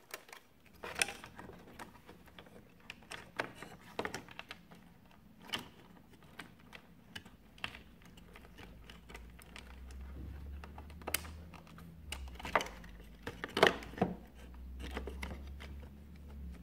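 Wire connectors and plastic parts clicking and tapping as they are pressed onto a De'Longhi ESAM coffee machine's power circuit board, in irregular small clicks with the loudest near the end. A low steady rumble runs under the second half.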